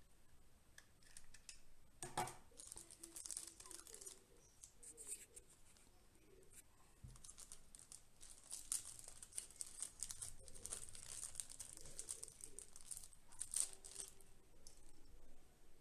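Small plastic accessory bags crinkling and rustling as hands handle them, faint and irregular, with a sharp click about two seconds in.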